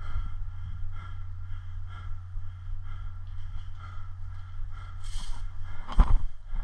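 A person breathing hard, about one breath a second, over a steady low rumble, with a short hiss about five seconds in and a sharp knock about six seconds in.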